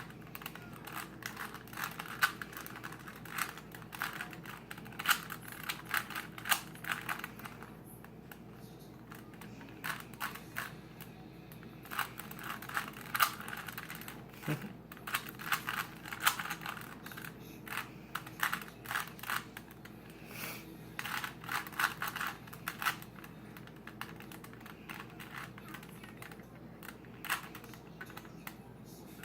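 A 3x3 Rubik's Cube being turned quickly by hand while it is being solved. The plastic layers make rapid clicks and clacks that come in runs of a few seconds, broken by short pauses.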